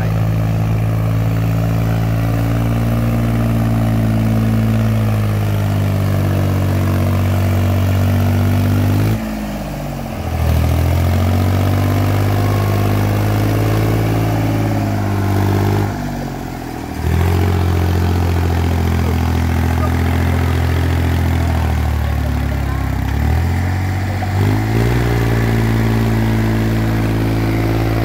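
Iseki farm tractor's diesel engine running hard as the tractor tries to drive out of deep paddy mud, belching black smoke. The engine note sags and recovers twice, about nine and sixteen seconds in, as the throttle eases and the engine loads up again.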